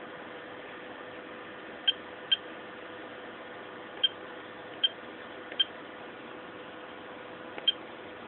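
Imax X200 battery charger's touchscreen beeping six times, short high-pitched key beeps at irregular spacing as the charge-current setting is tapped. A steady hiss with a faint hum runs underneath.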